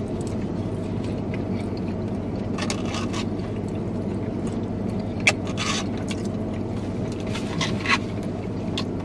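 Plastic forks scraping and clicking against black plastic takeout bowls, several short scrapes with one sharp click about five seconds in, over a steady low hum inside a car.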